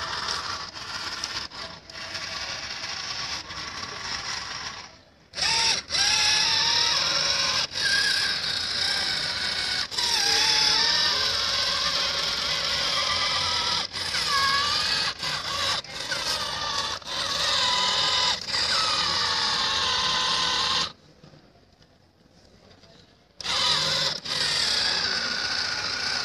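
Small electric gear motors of a home-built, remote-controlled agriculture robot whining with a wavering pitch as they are switched on and off from the remote. The whine cuts out briefly about five seconds in and stops for about two seconds near the end.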